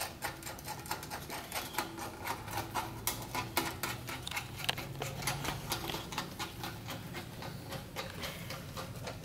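Light, irregular clicking and crinkling as bubble wrap and the exhaust pipe sections are handled and pushed together, over a faint low steady hum.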